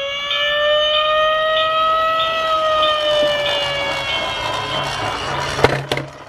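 A single siren wail that rises slowly, peaks about two seconds in, then falls and fades away. A sharp click sounds near the end.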